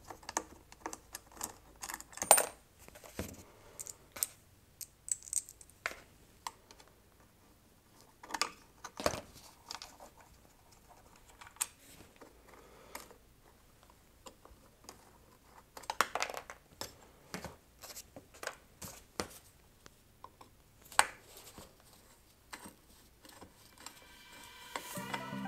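Scattered small metal clicks and taps, a few louder than the rest, as a screwdriver takes out the screws and clamp of an electric motor's wiring terminal box and the loose parts are set down on cardboard.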